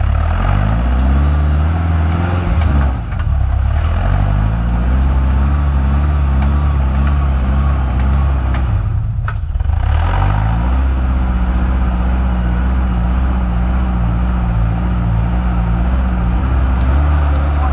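Off-road buggy's engine running hard under load, its revs rising and falling. The throttle briefly drops about three seconds in and again about nine seconds in, and the revs climb back up after each drop.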